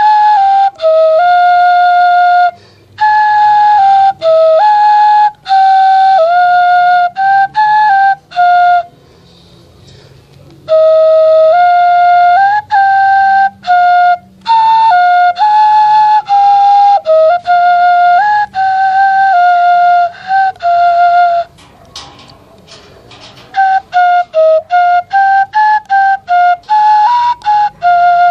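Homemade bamboo native-style flute playing a simple melody in short phrases of separate notes, staying mostly between two or three neighbouring pitches, with pauses for breath about nine seconds in and again about twenty-two seconds in.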